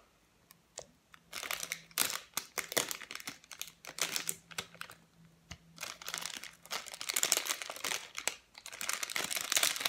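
A small plastic packet of sequins crinkling as fingers work it open, starting about a second in and going on and off.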